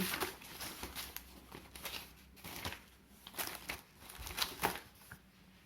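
Paper rustling and crinkling in short irregular spells as the pages of a printed user manual are leafed through.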